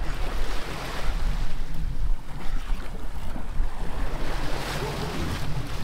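Sea water washing and splashing along the side of a fishing boat, with wind buffeting the microphone and a steady low engine hum underneath. The water noise swells about a second in and again near the end.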